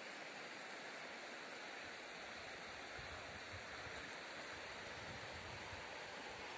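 River water flowing, a steady even rush, with some low irregular rumble from about three seconds in.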